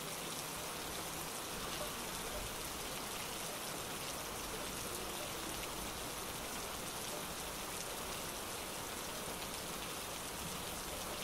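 Steady rain falling, an even patter of drops with no let-up.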